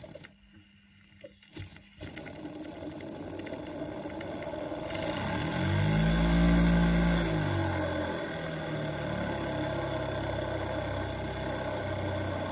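Model steam engine running under steam with a hiss: after a near-silent start with a couple of clicks, its note climbs as it speeds up about five seconds in, falls back, then holds steady.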